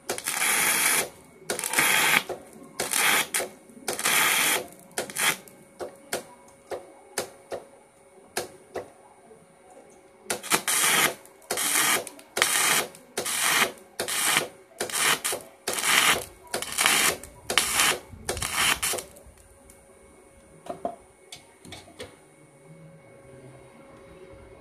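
Flux-cored wire welding arc crackling in a long series of short bursts, each under a second, as thin box-section steel is stitch-welded with a MIG converter run off a stick welder. The arc stops about 19 s in, leaving a few light clicks over a faint steady hum.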